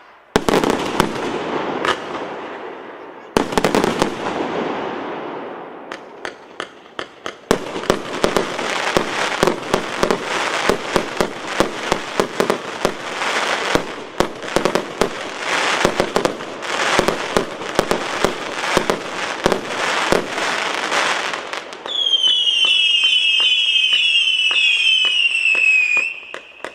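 Mixed-calibre 308-shot consumer firework battery firing: two big bursts with long crackling tails, then a rapid volley of shots. Near the end comes a run of short whistling shots, each sliding down in pitch.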